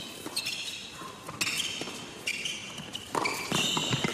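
Tennis rally on an indoor hard court: sharp racket strikes and ball bounces about once a second, with shoes squeaking on the court between them. Broader crowd noise comes up near the end.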